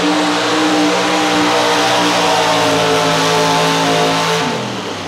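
Pro stock two-wheel-drive pulling truck's unblown engine held at full throttle on one steady high note while pulling the sled. About four and a half seconds in, the pitch falls away as the engine comes off the throttle.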